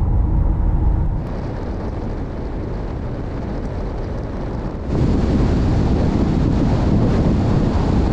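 Mazda Bongo van driving at highway speed: a steady low rumble of engine and road noise. About a second in it turns quieter, and from about five seconds in a louder rush of wind on the microphone covers it.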